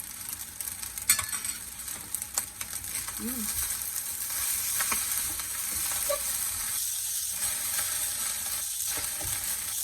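Corned-beef fried rice with vegetables sizzling steadily in a hot pan, with a few sharp clicks, the loudest about a second in.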